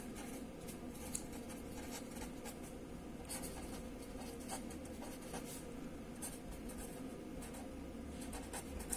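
Marker pen writing on paper: a run of short, faint scratchy strokes over a steady low hum.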